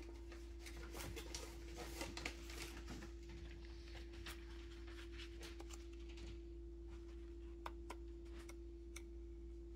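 Faint scattered clicks and light taps of small desk handling, with a stack of paper swatch cards on a metal binder ring picked up and handled, over a steady low hum. The clicks come thickest in the first few seconds and thin out after.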